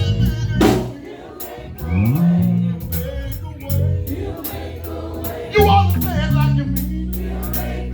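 Live gospel band playing with bass, keyboard and drums at a steady beat, with voices of the gospel group singing over it.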